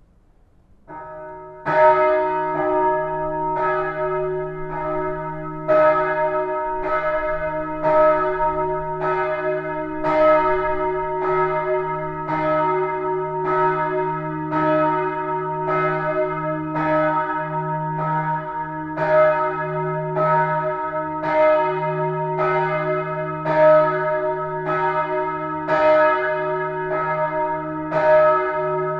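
Church bells of the Neumünster in Würzburg ringing in full peal. Several swinging bells strike over and over, their tones overlapping above a sustained low hum. The ringing starts a second or two in.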